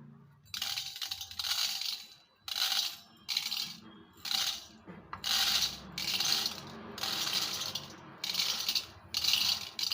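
Raw rice grains being scooped and poured into a small glass for measuring: a string of short rattling rushes of grain, one after another, about one each second.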